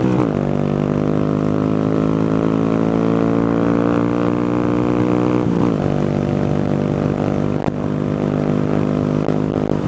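Honda Grom's 125 cc single-cylinder four-stroke engine running under way, its pitch climbing slowly as it pulls and dropping sharply with a gear change right at the start and again about five and a half seconds in.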